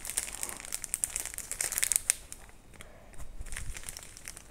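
Clear plastic packaging sleeve crinkling and crackling as it is handled and turned over in the hands, searched for its opening. The crackles come thick for about the first two seconds, then thin out to scattered ones.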